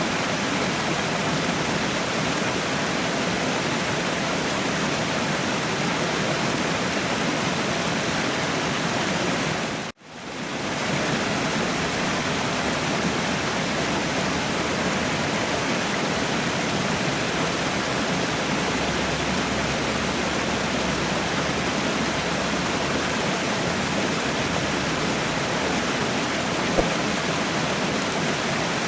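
Waterfall: a steady, even rush of falling water. About ten seconds in it cuts out for an instant and swells back in, as at the splice of a looped recording.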